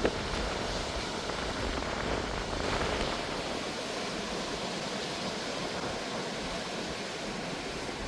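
Pacific Ocean surf washing against the rocky coast, a steady rush of water that swells once about three seconds in.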